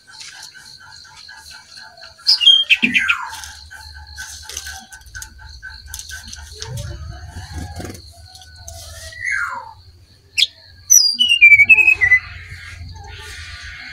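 Brown-chested jungle flycatcher song: loud bursts of quick falling whistled notes about two seconds in and again near the end, with a softer falling whistle in between. Behind it a faint note repeats about three times a second over a steady high hum.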